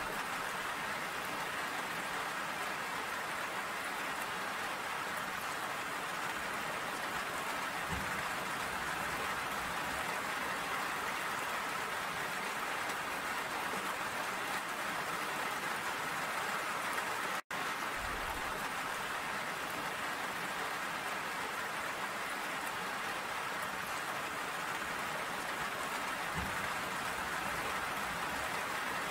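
Steady rain falling, an even hiss of drops throughout. The sound cuts out completely for an instant a little after halfway through.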